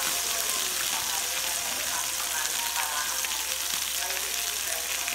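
Beef sizzling on a tabletop yakiniku grill: a steady crackling hiss.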